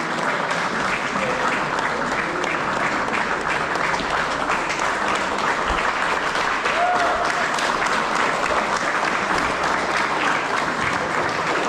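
Audience applauding: steady, sustained clapping from many hands, with a few voices mixed in.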